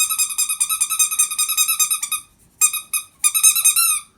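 Small pet bird chattering: a rapid run of high, buzzy chirps with two short breaks. Near the end it turns into a few swooping calls.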